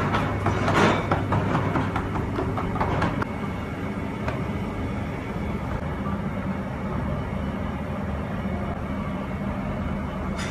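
Steady low mechanical hum of kitchen equipment, with a few soft pats and knocks in the first seconds as the pide dough is pressed out by hand on the wooden counter.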